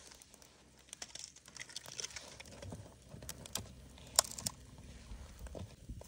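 Light crinkling and rustling with scattered sharp clicks and taps, the loudest about four seconds in.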